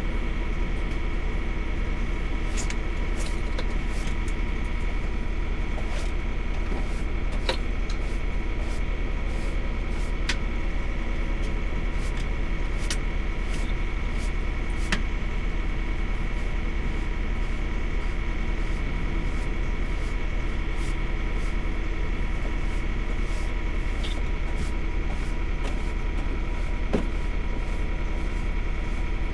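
Steady drone of a semi truck's engine idling, heard inside the cab, with scattered light clicks and taps over it.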